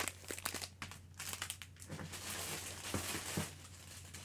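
Clear plastic bag crinkling and papers rustling as a junk journal kit is handled and pushed into the bag. The crackling is dense for the first two seconds, then gives way to a few softer rustles.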